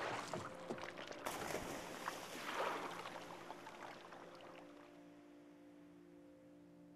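Water splashing and sloshing around a rowboat, starting suddenly about a second in, swelling briefly near the three-second mark, then fading away.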